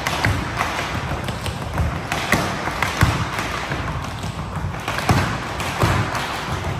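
Tap shoes striking a wooden dance floor as a group of dancers works through steps together: a steady stream of sharp clicks mixed with dull thumps in an uneven rhythm.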